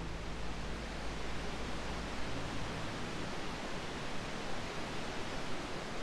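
Steady, even wash of gentle ocean surf, with faint sustained music notes dying away in the first couple of seconds.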